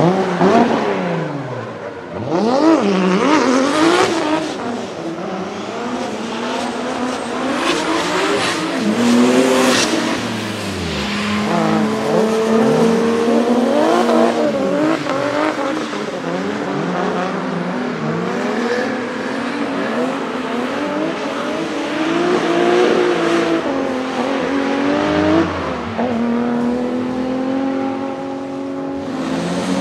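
Single-turbo Toyota 2JZ-GTE straight-six in a GT86 drift car, revved hard up and down over and over as the car drifts, with sharp cracks in places.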